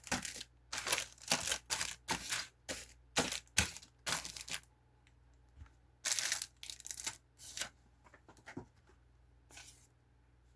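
Packaging being handled: a quick series of short crinkling, rustling noises, then a pause, then a second cluster and one last rustle near the end.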